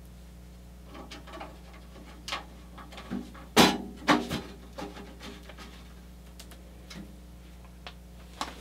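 Hex key clicking against screws and aluminium chassis panels of a Caselabs Magnum SMH10 case while a panel is aligned and screwed together, with scattered light clicks and a louder pair of knocks about three and a half to four seconds in.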